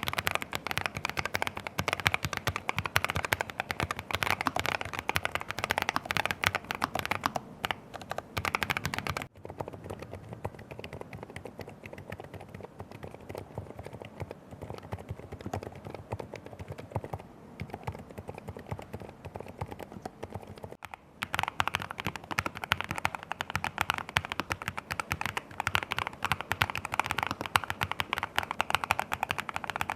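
Fast continuous typing on a Lofree Flow 2 low-profile mechanical keyboard, in three stretches with different switches. The middle stretch, from about 9 s to 21 s, is quieter and duller than the first and last.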